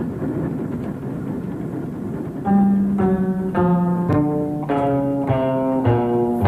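Steady rumble of a moving train heard from inside the carriage. About two and a half seconds in, music on low strings enters over it, playing a line of separate notes about two a second.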